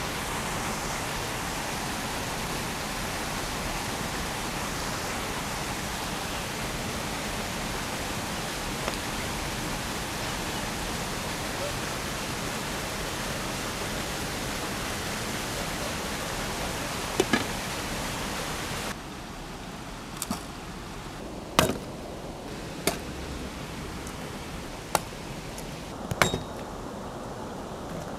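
A steady, even rushing noise that cuts off abruptly about two-thirds of the way through. It gives way to a quieter background with five or six sharp knocks, irregularly spaced.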